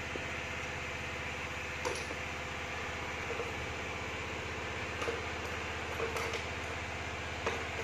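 A small engine running steadily, with several sharp metallic clinks of hand tools on top.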